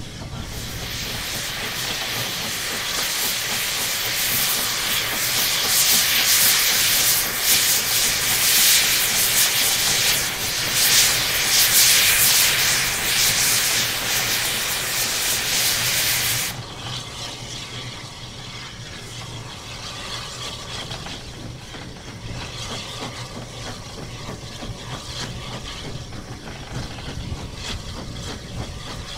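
Loud hiss of escaping steam on the footplate of Southern Railway S15 steam locomotive No. 847. It builds over the first few seconds and cuts off suddenly about sixteen seconds in, leaving the quieter steady running noise of the locomotive.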